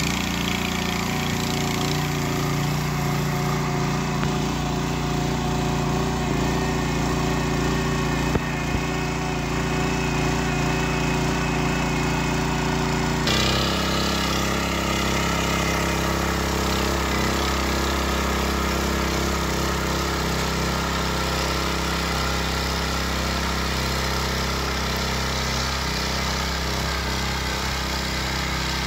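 Ruris 751KS walk-behind tiller engine running steadily under load while its eight tine blades churn through the soil. There is one sharp tick about eight seconds in, and the engine note shifts suddenly about halfway through.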